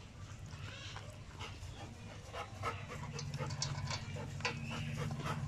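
A husky-type dog eating from a steel bowl, crunching dry kibble mixed with rice: a run of short crisp crunches and clicks that gets busier about halfway in. A low steady hum sits underneath in the second half.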